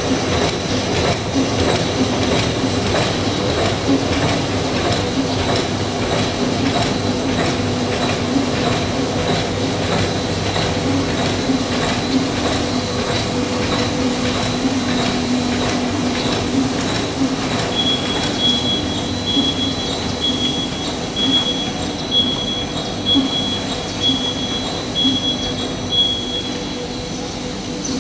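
Bubble bag making machine running: a steady mechanical hum with a fast, even clatter from its mechanism. In the second half a short high beep repeats about every 0.7 s for several seconds.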